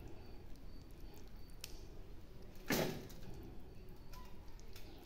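A serving spoon scraping and knocking against a stainless steel pot while thick stew is spooned out, with a few light clicks and one louder knock about halfway through.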